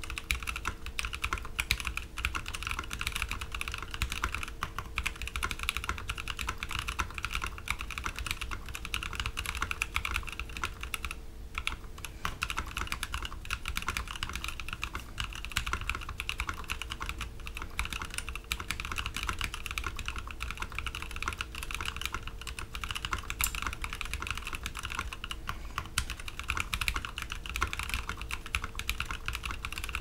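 Fast touch-typing on a custom mechanical keyboard with Novelkeys Cream linear switches lubed with PTFE powder, blank POM keycaps and a layered POM case: a rapid, continuous clatter of keystrokes with a brief pause about eleven seconds in.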